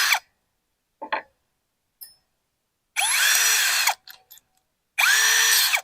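Electric drill boring a 7/16-inch hole through a plastic water-filter canister in short trigger bursts, the motor speeding up and slowing down each time: two brief bursts, then two longer ones of about a second each.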